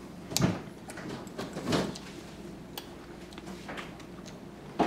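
A toddler eating spaghetti with his hands from a plastic plate: a few short knocks and clicks from the plate, fork and table, about three in all, over a quiet room background.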